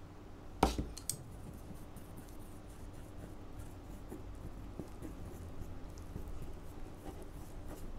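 A ceramic dish knocks sharply once, just under a second in, as it is set down. Chopsticks then stir flour and water in a small ceramic bowl, with light scraping and ticking against the bowl as the mixture clumps into a stiff dough.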